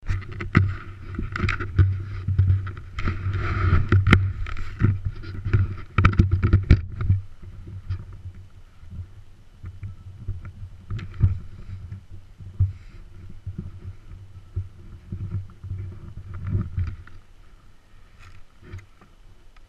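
Handling noise on a GoPro on a snowmobile: loud knocks and rubbing for about the first seven seconds, then softer scattered bumps over a muffled low drone.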